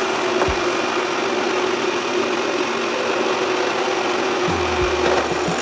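Milling machine running steadily with a constant hum, its end mill cutting into a wooden rifle buttstock with a continuous hiss.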